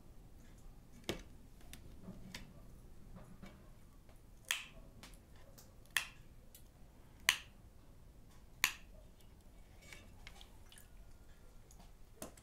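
Kitchen shears snipping at a fish on a metal tray: four sharp snips about a second and a half apart, with a fainter click just before them.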